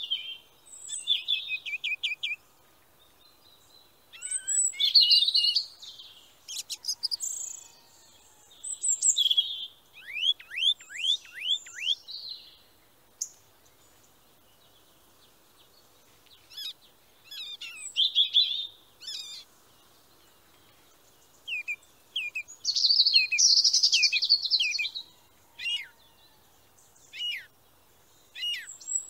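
Small birds chirping and trilling in high-pitched bursts, with a run of quick down-slurred whistles about ten seconds in and short quiet gaps between the phrases.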